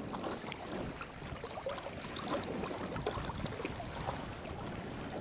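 Small waves lapping and splashing against shore rocks, a faint, irregular patter over a light rush of wind.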